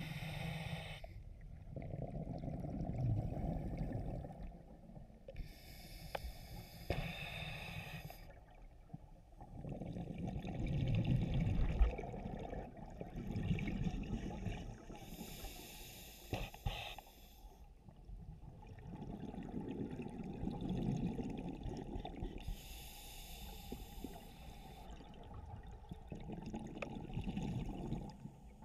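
A scuba diver breathing through a regulator underwater: a hissing inhale through the regulator alternates with a low rumbling rush of exhaled bubbles, in slow, regular breaths.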